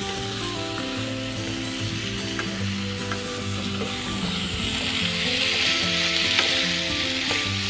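Fried chicken pieces sizzling in masala in a frying pan as a spatula stirs them, with a few light scrapes of the spatula. The sizzle grows louder about halfway through. Background music plays underneath.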